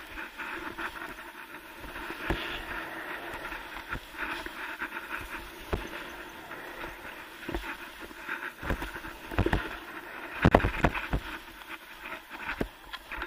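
Skis hissing and scraping over snow on a fast downhill run, with a run of thumps in the second half, the loudest about three-quarters of the way through.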